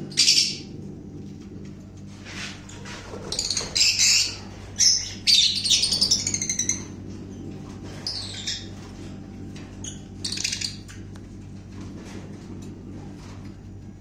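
Lovebirds calling with sharp, shrill, high-pitched chirps in irregular bursts: one loud call right at the start, a rapid cluster from about three to seven seconds in, and a few single calls later. A steady low hum runs underneath.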